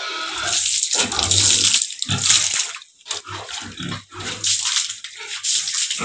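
Potassium permanganate solution splashed from a mug onto a wet concrete pen floor in several throws, the loudest in the first two or three seconds, with pigs grunting at times.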